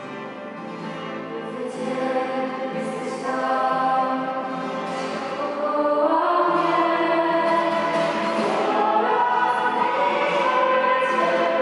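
A small group of female voices singing a Christian worship song in harmony, with acoustic guitar accompaniment. The singing swells louder about two seconds in and again about six seconds in.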